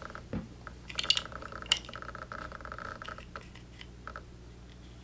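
A few faint clicks and handling sounds of a retractable craft pick as its needle is slid out, over a faint steady high whine that stops about three seconds in.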